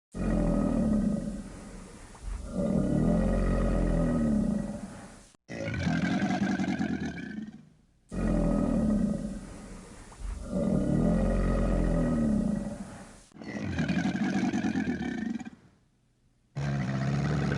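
Crocodile roaring: a series of low, rough, growling calls, each a few seconds long, with short breaks between them and the same call heard more than once.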